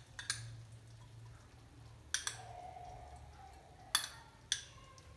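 A metal spoon clinking against a small glass bowl and the rim of a non-stick kadhai while oil is spooned into the pan: four or five light clinks spread over several seconds, over a low steady hum.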